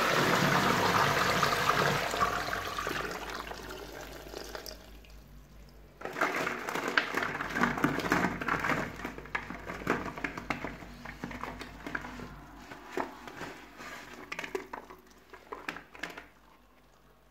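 Toilet flushing, its water rushing around plastic ball-pit balls in the bowl and fading away over about five seconds. Then, from about six seconds in, plastic balls knocking and rattling against each other and the wet bowl as a hand moves them about.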